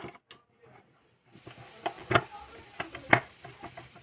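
A steady hiss starts about a second and a half in, with scattered light clicks and taps over it, the loudest two about a second apart, as of a small object being handled. The first second is almost silent.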